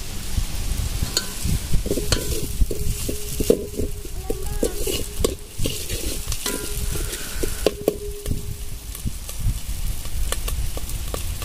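Steel ladle stirring and scraping masala paste frying in oil in a large metal pot, with repeated clinks that set the pot ringing, mostly through the middle, over a faint sizzle.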